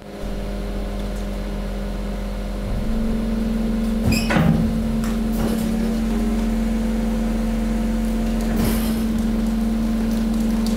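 Hydraulic waste compactor running: a steady motor and pump hum that steps up in level about three seconds in as it takes load. Short crackles and snaps of the mixed waste being crushed come a few times.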